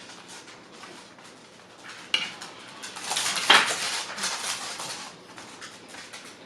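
Cutlery scraping and clinking against a plate while eating, with a sharp click about two seconds in and a louder clink about three and a half seconds in.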